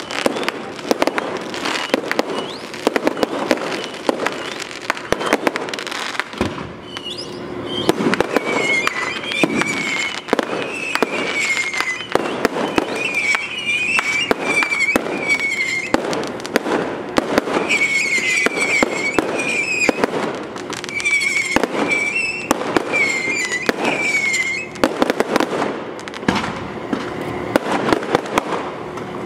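Fireworks display going off in a continuous barrage of sharp bangs and crackles. From about eight seconds in until near the end, a run of short, wavering high whistles sounds over the bangs, typical of whistling shells.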